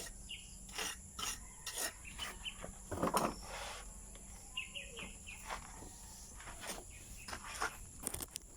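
Repeated short scraping and tapping of hand work on masonry, with birds chirping in short calls.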